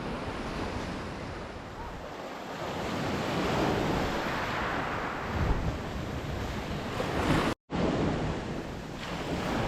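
Sea surf washing onto the beach with wind buffeting the microphone, swelling a few seconds in. The sound drops out for an instant near the end.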